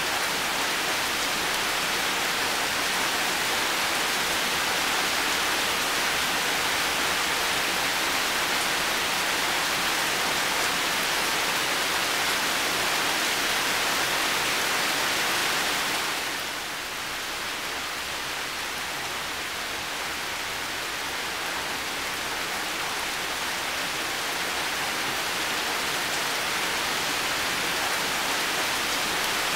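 Heavy rain falling steadily, an even hiss that eases slightly a little past halfway through, then picks up again.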